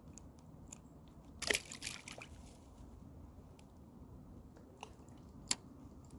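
A short splash of water about a second and a half in, over the steady rush of a flowing chalk stream, followed by a few sharp clicks, the loudest near the end.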